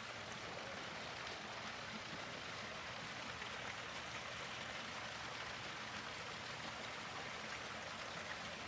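Faint, steady hissing background noise with no distinct sound standing out.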